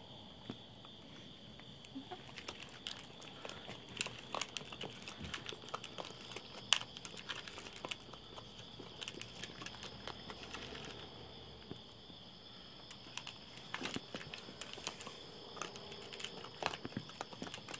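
Raccoons crunching dry cat kibble from a plate: irregular crisp crunches and clicks of chewing and of kibble knocking on the plate, a few each second.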